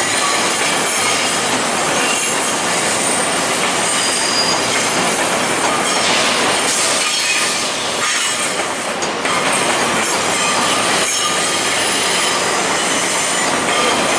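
Steel wheels of VIA Rail LRC passenger cars squealing against the rails as the train rolls slowly into the station. Several high squeal tones sit over the steady running noise of the cars.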